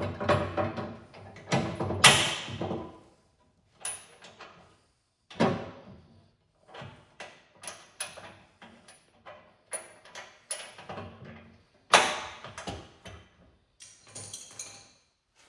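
Irregular metal clanks and knocks from plow-blade parts and hardware being handled and fitted. Some clanks leave a short high ring, and the loudest come about two seconds in and near twelve seconds in.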